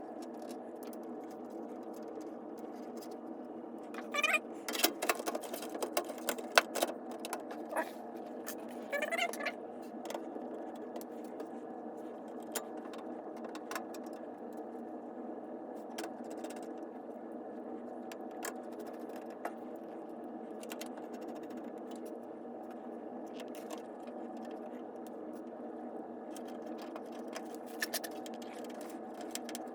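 Clicks and scrapes of computer parts being handled while a motherboard is fitted into a PC case, clustered about four to ten seconds in and then scattered, over a steady low hum.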